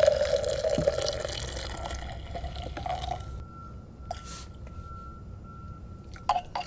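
Coffee poured from a French press into an insulated tumbler, a steady filling sound that climbs slightly in pitch as the cup fills and stops after about three seconds.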